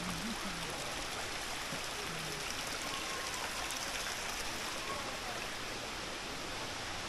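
Small stream running: a steady splash and rush of water trickling over the rocks into a shallow channel.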